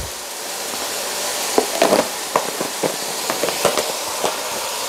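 Minced beef sizzling in a frying pan over a gas burner: a steady frying hiss with scattered crackles and light clicks.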